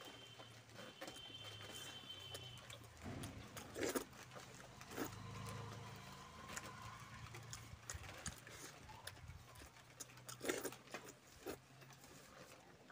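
Eating rice by hand from a banana leaf: fingers squash and mix rice against the leaf, and the eater chews with wet mouth clicks. Irregular small clicks run throughout, with a few louder taps about four, five and ten seconds in, over a faint low hum.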